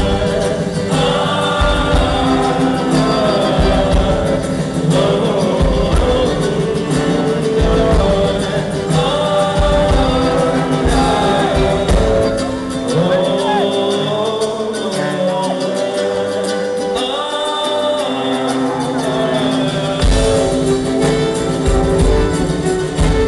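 Live brass-and-folk band playing an instrumental passage: trumpet and a low brass horn over accordion, ukulele and mandolin, with a steady bass-drum beat. The drum beat falls away about halfway through and comes back near the end.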